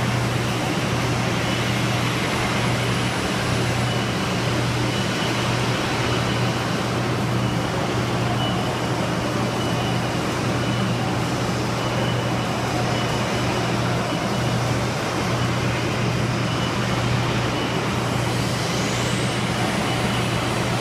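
Pipe elbow welding machine running with a steady low hum and an even hiss, unchanging throughout, with a faint rising whine near the end.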